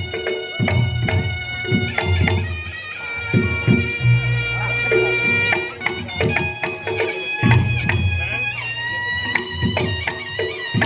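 Reog Ponorogo gamelan music: a slompret (a nasal double-reed shawm) holds long notes that shift pitch every few seconds, over quick drum strokes and gong-chime beats with deep drum or gong notes underneath.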